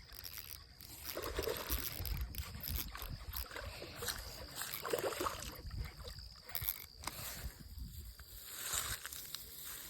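Faint water sloshing with an irregular low rumble of rod and handling noise as a hooked bass is fought and reeled in on light tackle.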